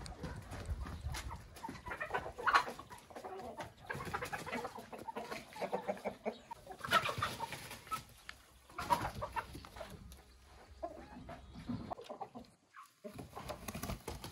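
A flock of hens and roosters clucking, with short calls coming in several louder flurries.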